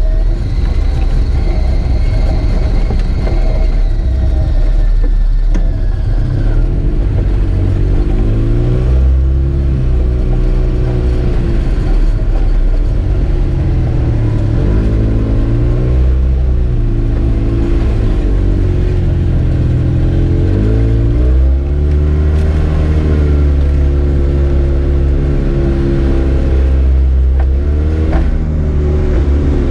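Arctic Cat Wildcat Trail 700 side-by-side's engine running on a rough dirt trail, its pitch rising and falling several times as the throttle is opened and eased off.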